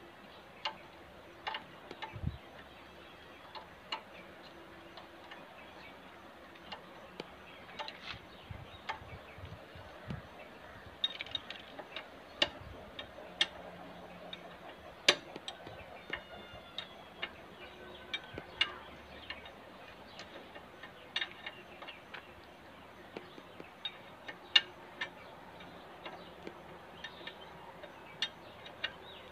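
Sharp metallic clicks and clinks at an irregular pace, roughly one a second, a few of them ringing briefly: a ratchet spanner being worked on a bolt at the pivot-pin boss of a JCB backhoe bucket.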